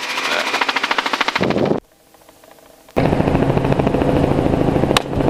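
Helicopter rotor chop, a fast even beat, which drops out briefly about two seconds in and comes back as a steady drone. A single sharp rifle shot cracks out near the end.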